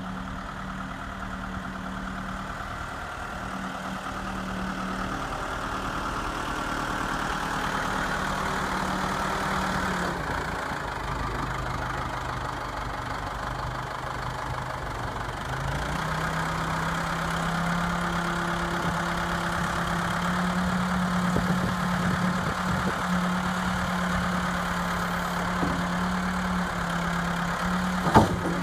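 2001 Case 590 Super M backhoe's diesel engine running steadily. About a third of the way through its pitch drops for several seconds, then rises again and holds. A single sharp click comes near the end.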